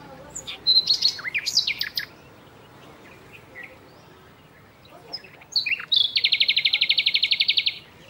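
Songbirds calling: a quick jumble of sharp chirps and short gliding whistles in the first two seconds, then, after a pause, a fast, even trill of about a dozen notes a second lasting nearly two seconds.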